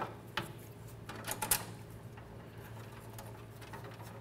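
Hand tools and metal clips clicking and scraping against a truck's steel frame rail as brake-line clips are worked loose: a few sharp clicks in the first second and a half, then faint scattered ticks, over a steady low hum.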